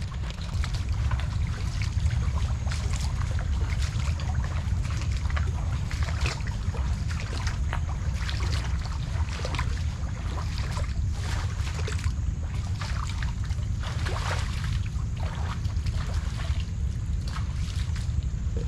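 Steady low rumble of wind buffeting the microphone, with irregular splashy crackles and knocks of water throughout.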